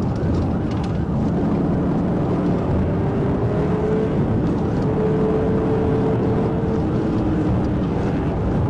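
Dodge Charger patrol car driving at pursuit speed, heard from inside the cabin as a steady engine drone mixed with road noise. A faint engine tone climbs slightly about three to four seconds in.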